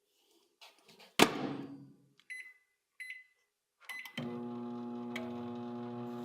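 Microwave oven door closing with a loud clunk about a second in, then a few keypad beeps, and the oven starting up with a steady hum.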